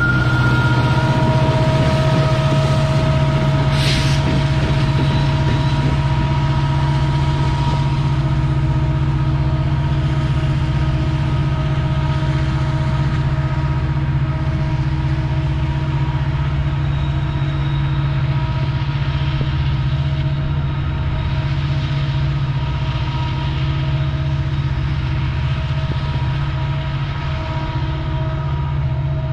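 BNSF diesel-electric locomotives shoving a loaded coal train uphill: a steady, heavy engine drone with fixed whining tones, slowly fading as the pushers draw away. A brief hiss about four seconds in.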